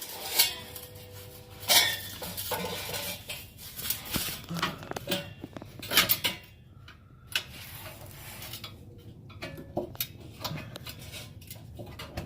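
Irregular metallic clanks and clinks as a steel exhaust test pipe is worked into place under a car and fitted onto its hangers. The louder knocks come in the first half.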